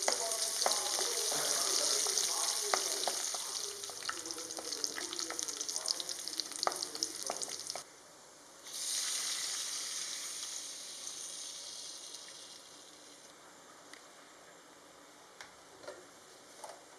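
Food sizzling in hot oil in a pan, with scattered sharp clicks through the first half. The sizzle cuts out briefly about eight seconds in, starts again, then fades to faint, leaving a few soft ticks near the end.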